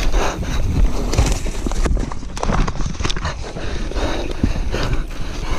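Mountain bike riding down a rough dirt trail: tyres over dirt and loose rock, with the frame, chain and components rattling and knocking irregularly, and wind on the microphone.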